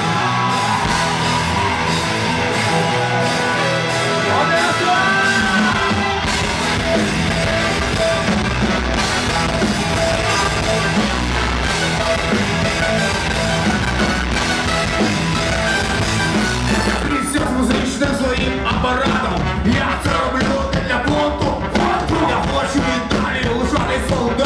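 Live rock band playing: electric guitars, keyboard and drums under a male singer. A heavy bass line comes in about five seconds in.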